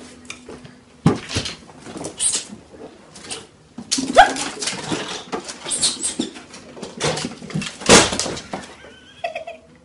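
A dog's short cries among scuffling and knocks, with a brief rising cry about four seconds in and a wavering cry near the end.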